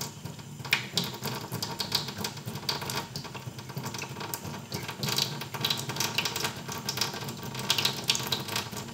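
Thin stream of tap water running into a stainless steel sink, with a cat lapping at the stream: a quick, irregular run of small wet clicks over the steady splash of water.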